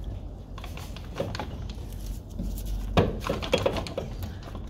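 Metal clinks and knocks as a stuck CV axle is worked at to pull it out of the transmission, with a sharp knock about three seconds in followed by a quick run of clicks.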